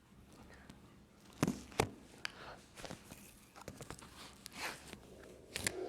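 Handling noises: two sharp knocks close together about a second and a half in, then soft rustling and small clicks, and another pair of sharp clicks near the end.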